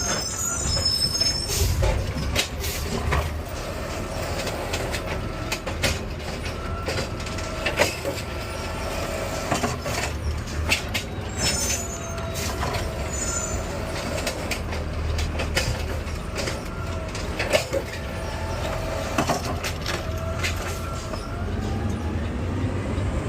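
Garbage truck at work: a steady low engine rumble under repeated metallic knocks and clanks, with pitched tones that rise and fall and brief high squeals.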